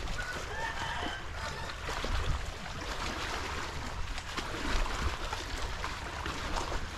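Chickens clucking, with a few short calls about half a second to a second and a half in, over a steady low rumble.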